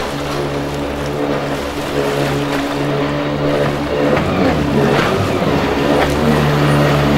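Small Gather Sport jet boat's engine running at speed with a steady drone, its pitch wavering and dipping about four to five seconds in, over the hiss of water and spray.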